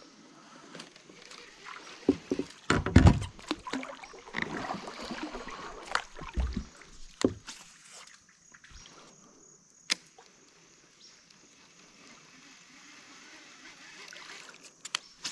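Water sloshing and lapping against a kayak hull as it drifts. There are a few sharp clicks, and a cluster of heavier thumps about three seconds in.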